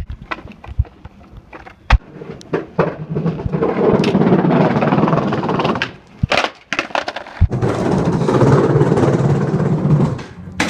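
BMX bike being ridden: sharp knocks and clanks of the bike and its parts, with two long stretches of loud rushing noise from tyres rolling on wet pavement.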